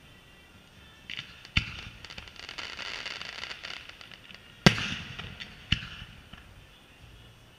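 Aerial firework shells bursting: three sharp bangs, the loudest a little past the middle, with a stretch of dense crackling between the first two.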